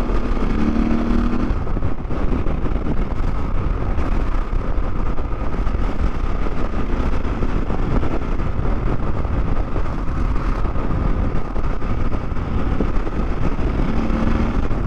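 Husqvarna 701 Enduro's big single-cylinder engine idling steadily through a freshly fitted Akrapovic slip-on exhaust.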